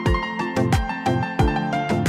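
Background music with a steady beat: a deep kick drum about every two-thirds of a second over held keyboard-like chords.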